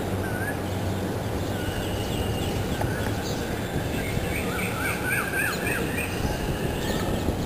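Birds calling over a steady low rumble of background noise: a short wavy whistle repeated about once a second, and from about four seconds in a quick run of chirps.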